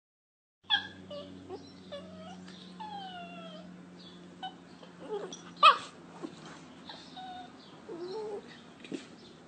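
Small curly-coated dog whining in a string of high, sliding whimpers while being petted, with one sharper, louder cry about halfway through.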